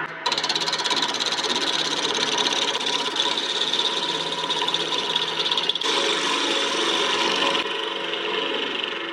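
A turning tool cutting a spinning workpiece on a wood lathe: a steady, rapid rasping scrape. The sound changes abruptly a few times.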